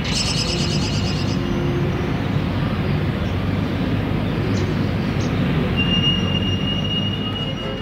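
Steady low rumbling noise, with a rapid run of high squealing chirps in the first second or so and a thin, high, steady whine over the last two seconds.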